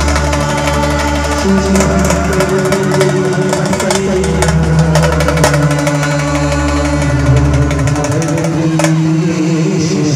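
Live band music: a saxophone plays a melody, miked and amplified through a band truck's loudspeakers, over drums and long sustained low notes.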